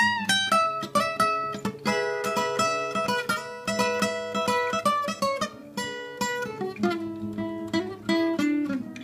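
Acoustic guitar played fingerstyle: quick plucked notes and ringing chords, moving down to lower notes near the end.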